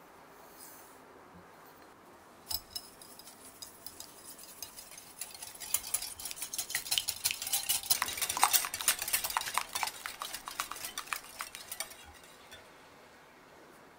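Wire whisk beating an egg in a glass bowl: rapid clicking of the wires against the glass. It starts about two and a half seconds in, gets faster and louder through the middle, and stops about twelve seconds in.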